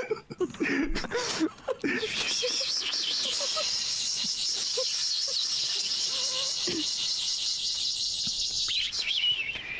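A person imitating a cicada with their voice: a steady, high buzzing hiss held for about seven seconds, ending with a falling note. Short bits of voice come just before it.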